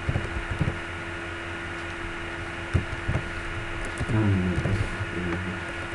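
Computer keyboard keys clicking a few times as a short word is typed, over a steady electrical hum. A low voice murmurs briefly after the midpoint.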